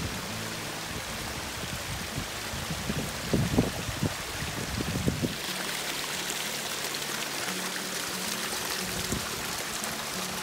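A small mountain creek splashes and trickles over rocks in a steady rush of water. A few low knocks come near the middle.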